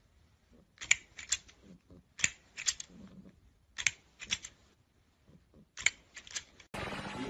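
Plastic crocodile-head extending snapper toy clacking, its jaws snapping shut: quick pairs or threes of sharp clicks about every one and a half seconds. Music comes in just before the end.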